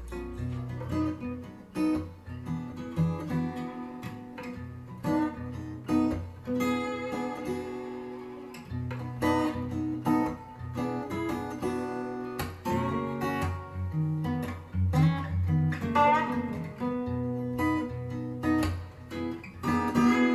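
Acoustic blues guitar music, plucked and strummed over a bass line, played back through a pair of JVC EX-P1 WoodCone speakers and picked up by a microphone in the room.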